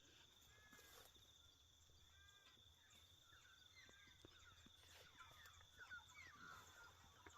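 Faint countryside ambience: a steady high-pitched insect trill, with small birds chirping and whistling, more often in the second half.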